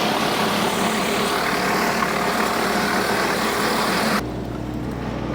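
Woodmaxx WM8H PTO-driven wood chipper chipping branches, a dense crackling noise over the steady drone of the tractor engine that drives it. About four seconds in, the chipping stops suddenly, leaving the tractor and chipper running empty.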